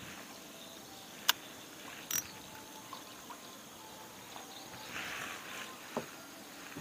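Quiet river water lapping and trickling around a small boat, broken by a few sharp clicks and knocks as a fishing rod and spinning reel are handled; the loudest click comes about a second in.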